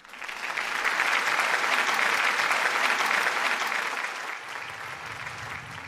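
Applause: a dense patter of many clapping hands that swells in at once and fades from about four seconds in, as low music notes begin.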